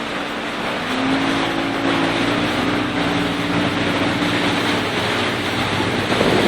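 Motorboat engine running under way, its hum rising slightly about a second in and then holding steady, over rushing wind and water.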